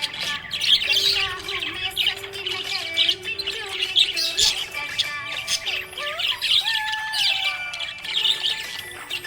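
Budgerigars chirping and chattering in quick, dense bursts, with a few longer whistled notes sliding down in pitch around seven seconds in.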